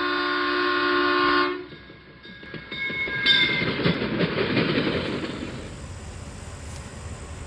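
A locomotive air horn sounds one held chord that cuts off about a second and a half in, followed by a train rumbling and clattering, which settles into a lower steady rumble near the end.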